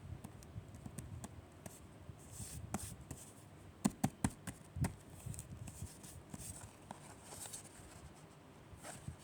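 Hands handling sticker paper dolls: scattered light taps and clicks, with a louder cluster of taps midway, and a few soft paper swishes and rustles.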